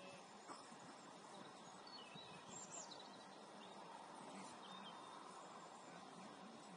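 Near silence: faint steady outdoor background noise, with a few faint high-pitched chirp-like sounds about two to three seconds in.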